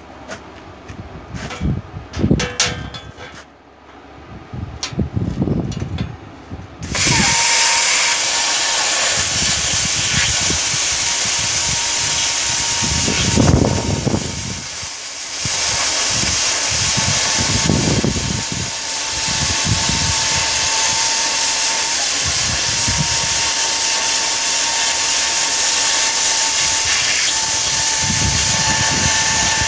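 Handheld plasma cutter cutting steel plate at 75 psi and 38 amps. A few knocks come first, then about seven seconds in the arc starts with a loud steady hiss and a thin whistling tone that runs on, dipping briefly near the middle.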